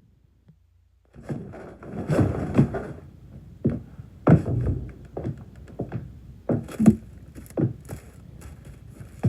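A run of irregular knocks and thuds, about a dozen over eight seconds, each with a short ringing tail, starting about a second in after near silence.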